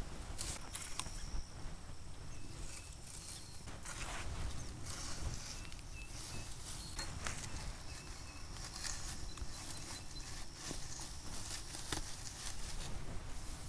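Pine saplings rustling and their twigs crackling as they are pushed and fed through a stick frame by hand, in irregular light crackles and scrapes, with a few faint short high chirps behind.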